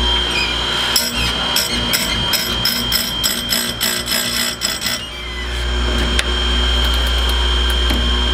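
Electric bench chainsaw-chain grinder running with a steady whine, its grinding wheel bounced lightly against a chain tooth in quick strikes, about three a second, for some four seconds from about a second in. The wheel is feathered so it takes off as little metal as possible without overheating and bluing the tooth. After the strikes the motor runs on alone, with a single click.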